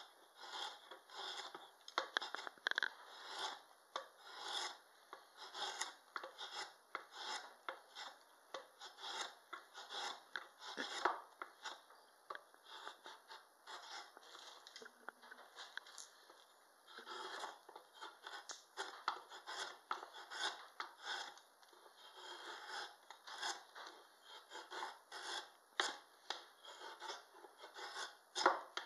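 Drawknife shaving a wooden spoon blank in short pulled strokes, about two scraping cuts a second, with a quieter stretch in the middle. These are rough cuts that bring the blank toward its shape.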